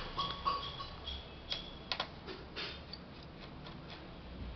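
Small clicks and taps of plastic and metal parts being handled while a laptop is taken apart. The clicks are irregular, several in the first two seconds and sparser after, over a steady low electrical hum.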